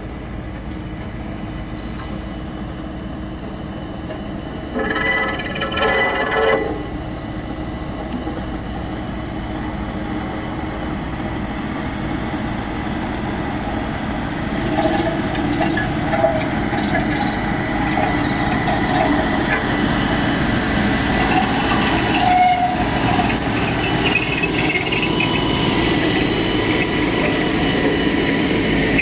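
Bulldozer's diesel engine running steadily under working load. A short, loud squeal about five seconds in, and more high squeals that grow louder in the second half.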